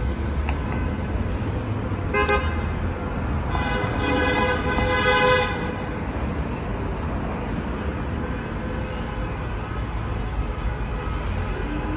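Street traffic running past with a car horn sounding twice: a short toot about two seconds in, then a longer blast of about two seconds.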